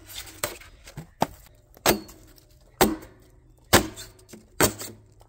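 Pick mattock hacking into the sheet-metal jacket and foam insulation of a gas water heater. A heavy blow lands about once a second, each followed by a short metallic ring.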